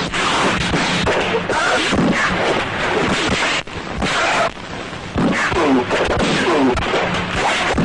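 Rapid punch and hit sound effects of a dubbed film fight, crowding one on another, mixed with shouts and grunts, with a brief break about three and a half seconds in.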